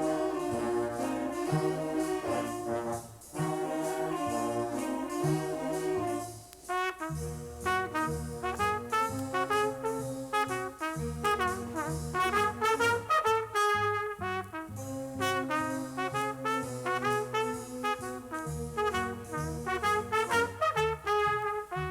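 Vinyl recording of a junior high school stage band, a big-band jazz ensemble, opening a tune with full brass chords. From about a third of the way in, a steady bass line joins under trumpet and trombone figures.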